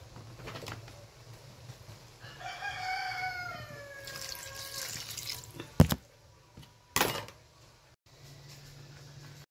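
A rooster crows once, a long call that falls in pitch at its end, while a stream of liquid is poured onto pork cubes frying in a wok, hissing. Then come two sharp knocks about a second apart.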